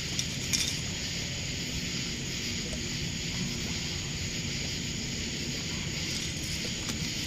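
Steady outdoor background noise on a fishing boat: an even low rumble under a constant high hiss, with no distinct events.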